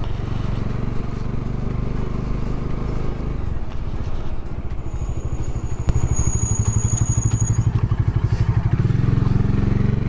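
Bajaj Dominar 400's single-cylinder engine running, its note taking on a quick, even throb from about six seconds in. A thin, high steady whine sounds over it for a couple of seconds in the middle.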